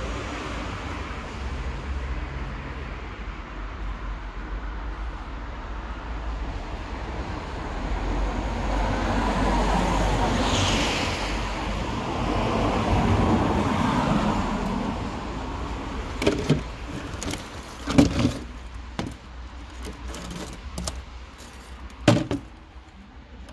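Street traffic noise, with a vehicle passing that swells and fades around the middle. In the last third, a few sharp knocks and clatters of hard household items being handled, the loudest two near the end.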